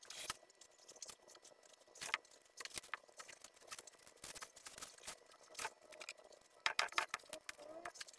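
Monitor lizard feeding on a raw chicken breast: scattered sharp clicks and scrapes from biting and handling the meat, which come thicker and louder near the end.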